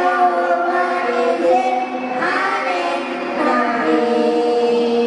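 A group of children's voices singing together in unison, a slow melody with long held notes.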